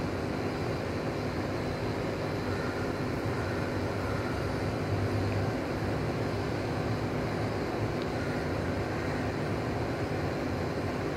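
Steady background rumble and hum with a few faint steady tones and no clear events.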